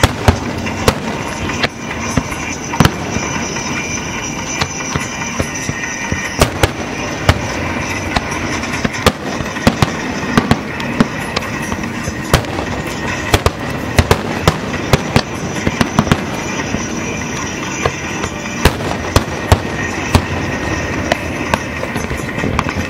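Fireworks display: aerial shells bursting in a continuous barrage of sharp, irregularly spaced bangs, often a few a second.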